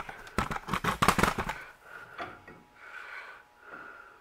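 Quick metallic clicks and knocks of a disc brake caliper being handled and fitted against a steel brake disc, bunched in the first second and a half. Then a few softer, evenly spaced rubbing sounds.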